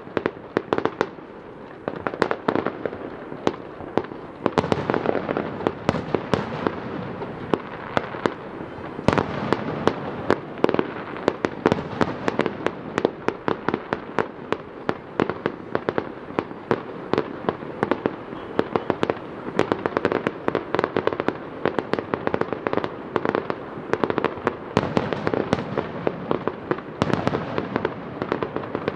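Fireworks display: aerial shells bursting in a dense run of sharp bangs and crackles, several a second, over a continuous rolling rumble, with a brief lull about a second in.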